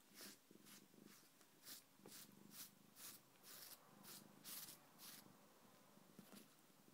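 A cat chewing and licking a catnip toy: a faint, irregular series of short wet smacks and clicks, about two a second.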